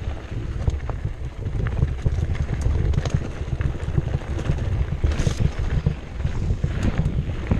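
Wind buffeting a chest-mounted GoPro's microphone as a 2015 Cannondale Jekyll 4 mountain bike rolls along a dirt singletrack, with scattered clicks and rattles from the bike over the rough trail. There is a brief brighter hiss about five seconds in.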